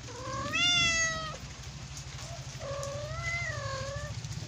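Kitten meowing twice: a loud call in the first second that rises and then falls, then a short chirp and a longer, wavering meow about halfway through.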